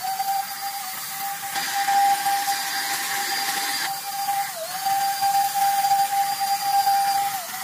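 Handheld electric power tool running at high speed with a steady high-pitched whine, worked against a wheel. The pitch dips briefly as it is pressed into the work, about halfway through and again near the end.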